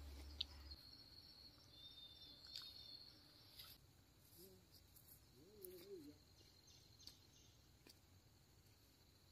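Near silence: faint outdoor ambience with a few faint ticks and a faint high thin tone.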